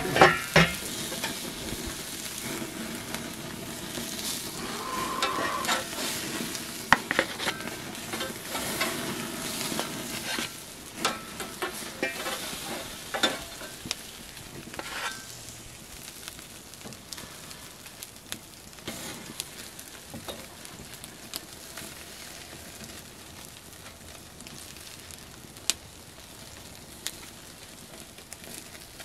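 Cheeseburger patties and buns sizzling and crackling over a charcoal kettle grill, with scattered sharp clinks and scrapes of a metal spatula on the grate. A loud clatter comes at the very start, and the sizzle grows quieter in the second half.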